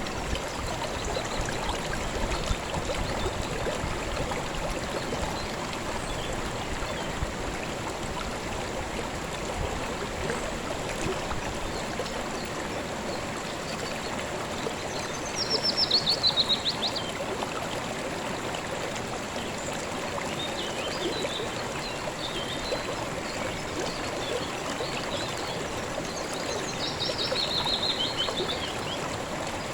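A small river running steadily over rocks, a continuous babbling rush. A bird sings a short descending trill about halfway through and again near the end, with a few softer chirps in between.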